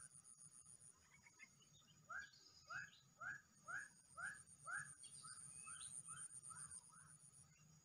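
Faint calls of swamp wildlife: short rising chirps repeat about twice a second over a thin, steady high-pitched trill that stops about a second in and comes back near the middle.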